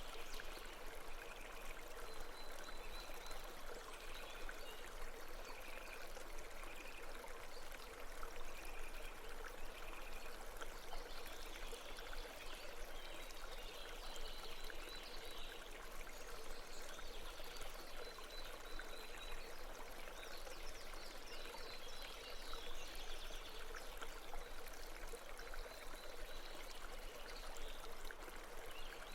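A babbling mountain stream running steadily, with faint high chirps over it.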